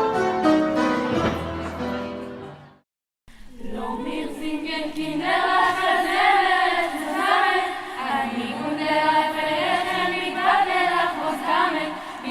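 Instrumental music fades out in the first couple of seconds, followed by a brief silent break. After the break a youth choir begins singing with vibrato.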